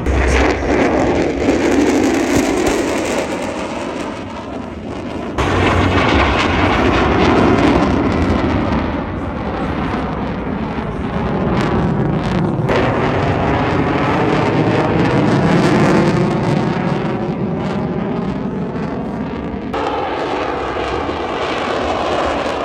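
Airplane engine noise from aircraft flying past, swelling and fading, in several stretches that change abruptly about 5, 13 and 20 seconds in.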